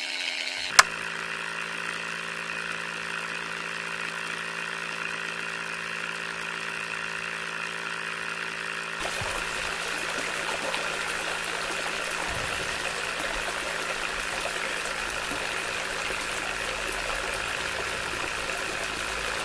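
Small DC motor of a homemade mini water pump starting with a click under a second in, then running with a steady hum. From about halfway, water pouring from the outlet pipe into wet soil joins it.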